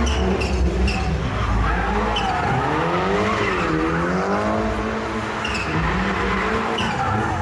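Rally-prepared Ford Fiesta drifting in circles on asphalt: the engine revs rise and fall with the throttle, with a deep dip and climb around the middle, while the tyres squeal and skid.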